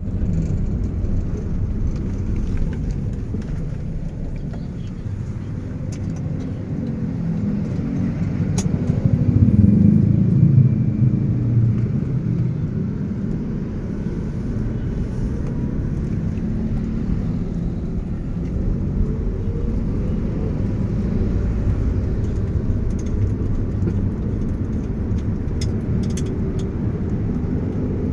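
Taxi cabin noise while riding: a steady low rumble of engine and tyres on the road, swelling louder about ten seconds in, with a few faint clicks.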